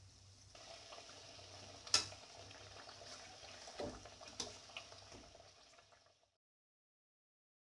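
Kachoris deep-frying in hot ghee in a kadhai: a steady, faint sizzle. About two seconds in there is a sharp click, and around four seconds a few knocks as a slotted metal spoon works the kachoris in the pan. The sound cuts off suddenly about six seconds in.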